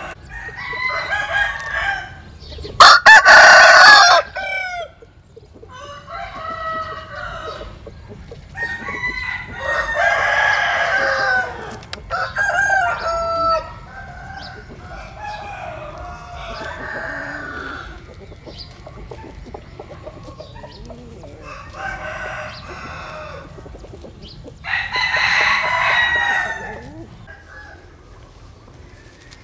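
Roosters crowing again and again, a crow every few seconds, each lasting one to two seconds; the loudest crow comes about three seconds in. Softer clucking sounds between the crows.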